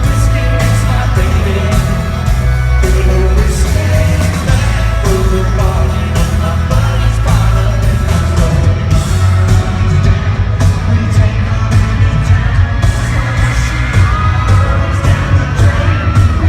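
Live country band playing loudly with a lead singer over a heavy bass and a steady drum beat, with yells and whoops from the crowd.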